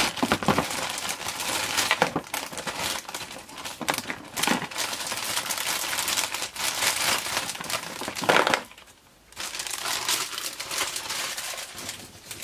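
Packaging crinkling and rustling as action figures are handled and unwrapped, with a brief pause a little before the nine-second mark.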